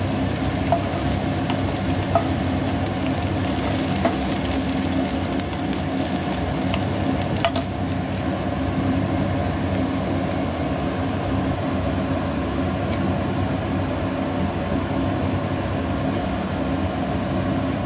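Pointed gourd pieces sizzling in hot mustard oil in a nonstick frying pan, with a few light clicks of a wooden spatula in the first half. The high hiss goes duller about halfway through.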